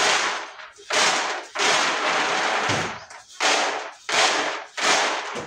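Shelled maize kernels tossed and caught in a flat woven winnowing basket (rusero), rattling and rushing in about six bursts as the chaff is winnowed off.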